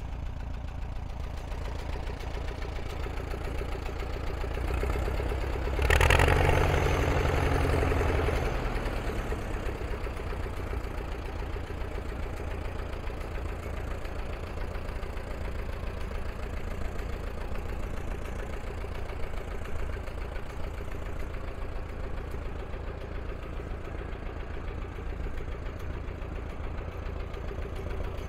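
1938 Allis-Chalmers WF tractor's four-cylinder engine running steadily as the tractor is driven slowly. About five seconds in it grows louder for a few seconds, then settles back to its steady run.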